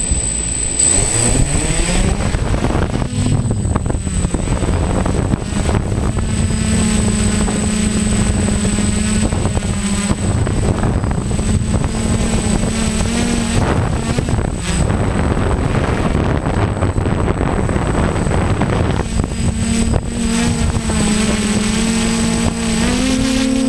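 DJI F550 Flamewheel hexacopter's six motors and propellers spinning up with a rising whine about a second in, then running as a steady multi-rotor hum as it lifts off and flies. The pitch shifts a few times and climbs near the end as the motors work against gusty wind, with wind noise on the onboard microphone.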